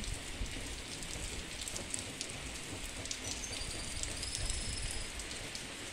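Steady rain falling on trees and open ground: an even hiss with scattered drop taps.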